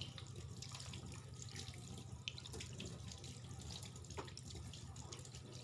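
Water running faintly as soapy hands are rinsed under it, with small splashes and drips.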